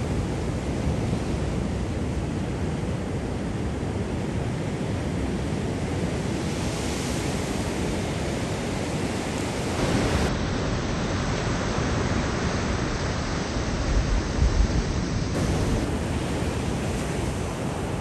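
Surf breaking and washing up a sandy beach, a steady rush of waves, with a few low wind thumps on the microphone about three-quarters of the way through.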